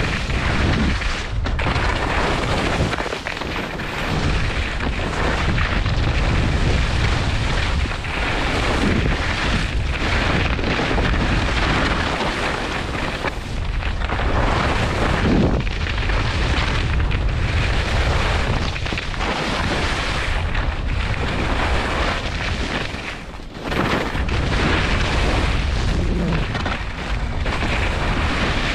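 Wind buffeting the microphone and skis scraping over packed snow on a fast downhill run: a loud, steady rush with a heavy rumble that dips briefly a few times.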